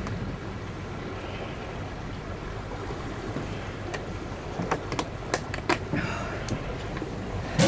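Steady wind and water noise of a sailing yacht under way, with a few sharp clicks and knocks in the second half.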